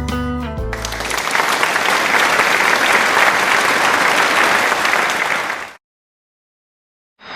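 Country music with steel guitar ends in the first second and an audience applauds, the clapping cutting off abruptly after about five and a half seconds. A brief faint sound follows near the end.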